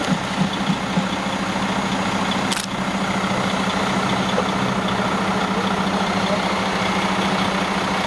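Heavy construction machine's engine running, pulsing unevenly for about the first second and then settling into a steady hum.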